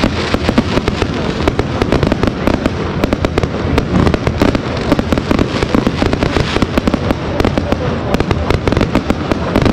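Fireworks going off in a dense, unbroken barrage of rapid pops, bangs and crackling as aerial shells burst overhead.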